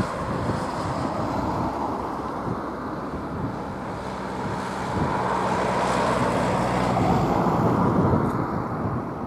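Lockheed C-130 Hercules's four turboprop engines and propellers running as the aircraft rolls along the runway after landing: a steady drone with a low hum of steady tones in it, swelling a little past the middle.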